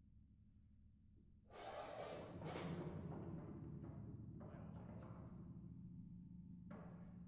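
Contemporary chamber music for solo percussion and ensemble. After a near-silent pause, three quick, noisy percussion strokes come about a second and a half in. A sustained low note then holds beneath them, and more strokes follow every couple of seconds.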